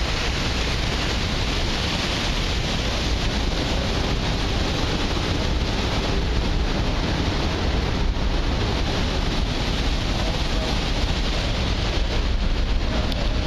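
Steady rush of churning propeller wash alongside a ferry's hull as it pulls away from the dock, over a low rumble, with wind buffeting the microphone.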